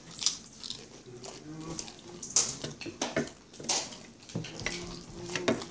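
Close-up crunching of nacho tortilla chips being chewed and bitten quickly, in sharp irregular crackles.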